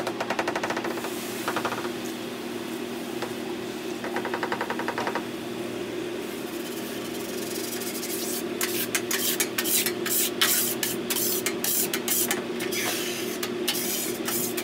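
A grill scraper's metal blade scraping the wet steel plate of a flat-top griddle in short, repeated strokes, busiest from about halfway through. Earlier there is liquid noise as water goes onto the griddle from a jug, over a steady low hum.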